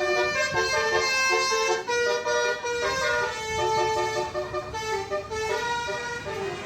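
Bus 'telolet' multi-tone air horn playing a rapid tune, several notes sounding together and the chord changing every fraction of a second.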